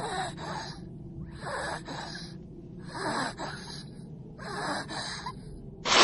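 A young woman panting hard and gasping in pairs of breaths about every second and a half, the sound of someone worn out at the limit of her strength. A loud rush of noise breaks in at the very end.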